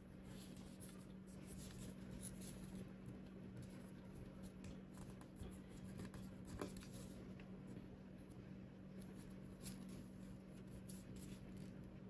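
Faint rustling and crinkling of origami paper being folded and creased by hand, in scattered short rustles over a steady low hum.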